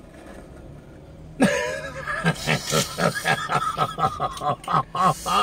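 Two people laughing hard together: a loud burst of rhythmic, pulsing laughter that breaks out about a second and a half in and keeps going.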